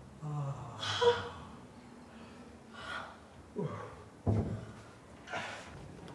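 Scattered short human vocal sounds, gasps and a low call that falls in pitch, with a single sudden thump about four seconds in.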